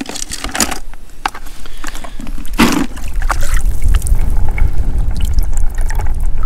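Shallow seawater splashing and trickling as a hand reaches in and scoops up a crab, with scattered sharp clicks early on. A steady low rumble comes in about halfway through.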